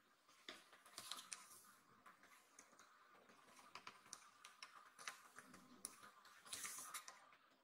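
Near silence with faint scattered ticks and light rustles from a black kitten moving and nosing about right at the microphone, with a short soft hiss-like rustle near the end.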